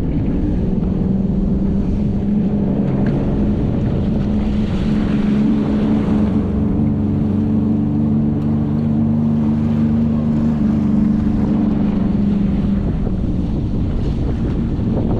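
Sea-Doo jet ski engine running steadily under way, with wind noise on the microphone; the engine note drops away near the end.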